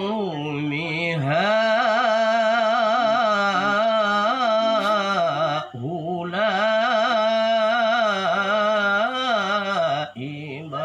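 A man chanting Quran recitation in the melodic style, long held phrases with wavering, ornamented pitch, with a short break for breath about six seconds in and another near the end.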